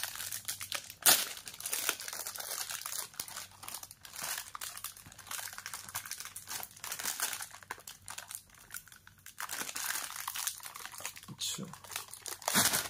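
Metallized plastic snack wrapper crinkling and crackling as it is pulled off by hand, with a sharp loud crackle about a second in and another near the end.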